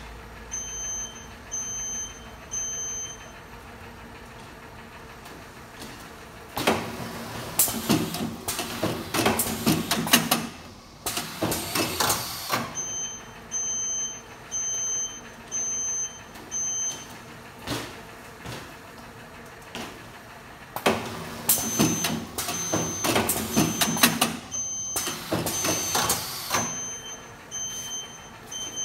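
YAC Japan YPG-500A automatic T-shirt folding machine running two folding cycles, each a few seconds of dense clattering and knocking from its folding mechanism. Between the cycles come short high beeps repeated about once a second.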